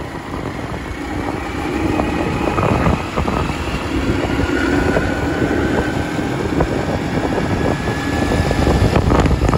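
A moving road vehicle's engine running at cruising speed, with wind buffeting the microphone and a faint engine tone rising slowly as it picks up speed.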